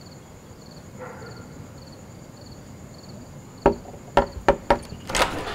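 Four sharp knocks on a door in quick succession about two-thirds of the way in, over steady cricket chirping. A louder rush of noise follows just before the end.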